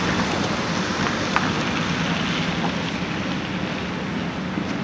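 Box delivery truck driving past and away down a street, a steady engine hum over a wash of tyre and traffic noise that eases slightly as it recedes.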